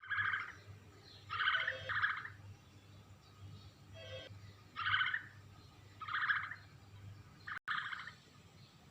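Bird calls made as an elephant bird sound effect: about six short, hoarse calls of roughly half a second each, coming at irregular gaps, two of them in quick succession near the start.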